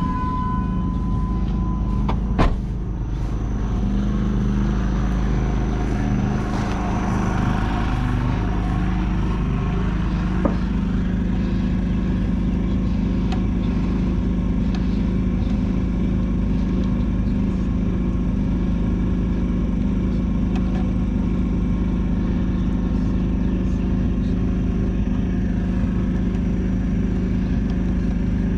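Diesel engine of a 1976 John Deere 450C crawler dozer running steadily, with a sharp click about two seconds in and a fainter knock about ten seconds in.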